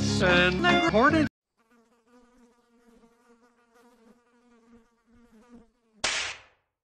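A Muppet voice over music, cut off sharply about a second in. Then a faint, wavering buzz that goes on for about four seconds, and a short loud whoosh about six seconds in.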